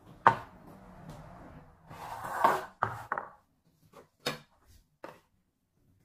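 Knocks and a short scrape of bowls being handled and set down on a tiled floor: a sharp knock about a quarter second in, a scrape that ends in a knock about two and a half seconds in, then a few lighter taps.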